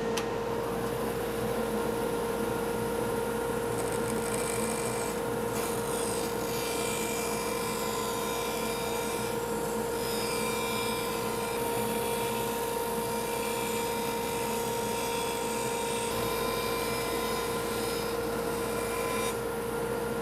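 Laguna 1412 bandsaw running with a steady hum while its blade cuts through MDF as the workpiece is fed along a template rub jig. The cutting noise is strongest from about four seconds in until near the end.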